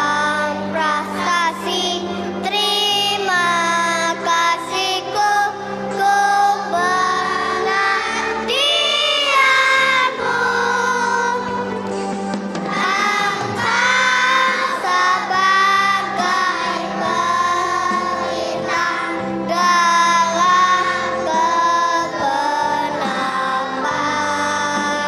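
Young children's choir singing a song together over instrumental accompaniment.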